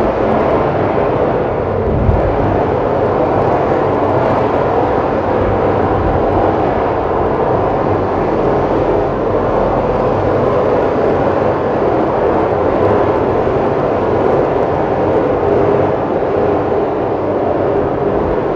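Steady city street traffic noise, an even unbroken wash of passing vehicles with a brief low thump about two seconds in.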